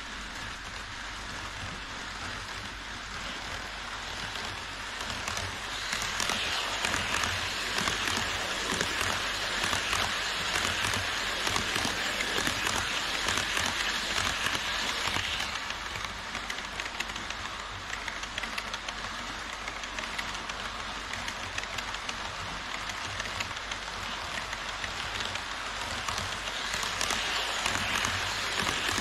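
HO-scale E5 series Shinkansen model train running along KATO Unitrack viaduct track: a steady rolling hiss of wheels on rails. It grows louder about six seconds in as the train comes alongside, eases a little about halfway through, and builds again near the end.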